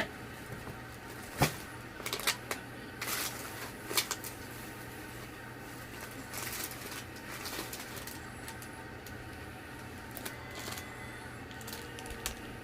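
Packaging being handled during an unboxing: short rustles of paper and wrapping, with a sharp knock about a second and a half in and a few lighter clicks and taps after it.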